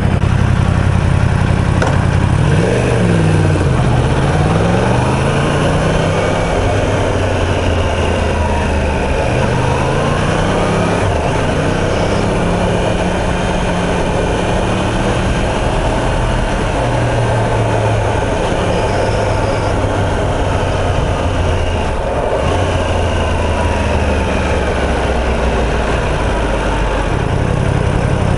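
Yamaha YZF-R1M's inline-four engine idling, then pulling away about two seconds in, its pitch rising and falling through the gears as the bike rides on, with wind noise. Near the end it settles back to a steady idle.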